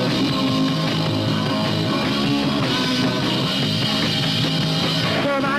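A punk rock band playing live: distorted electric guitar, bass and drums in a song's instrumental opening, with the singer's voice coming in near the end.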